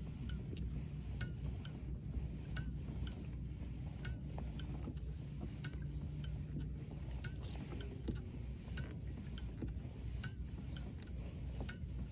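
Pedal-drive kayak under way: a low, steady rumble from the propeller drive and hull in the water, with sharp, irregular clicks about every half second.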